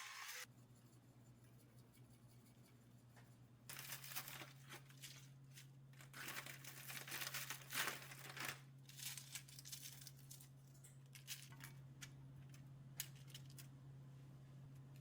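Rustling and crinkling of something being handled, like paper or wrapping, over several seconds, followed by scattered light clicks and taps, over a low steady hum.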